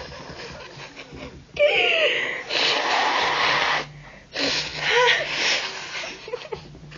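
A person drawing and pushing loud, wheezy breaths through the nose, two long breathy stretches with brief voiced noises, while trying to sneeze from pepper taken up the nostril.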